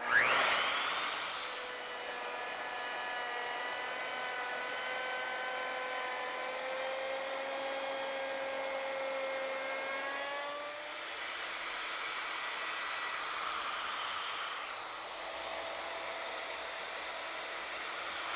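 Router on an ornamental mill spinning up with a rising whine, then running steadily as it mills a moulding profile along a wooden board. The whine shifts in pitch about ten seconds in.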